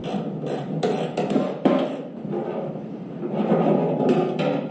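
A go-kart brake cable and its fittings being handled and pulled through the steel frame: a run of sharp clicks and light knocks over a low rustle. The clicks cluster in the first two seconds and come again about four seconds in.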